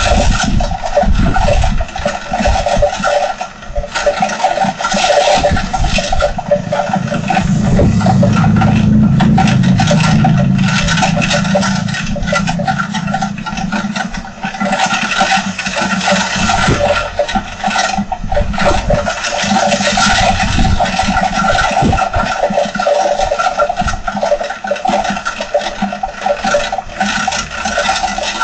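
Heavy rain falling hard with wind, a steady dense rush with constant patter; a deeper rumble swells in about a third of the way through and fades out a few seconds later.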